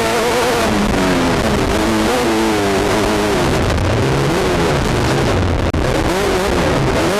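Class 10 off-road race car's engine heard from onboard, running hard under throttle, its pitch rising and falling again and again as the revs change, with a brief dip about five and a half seconds in.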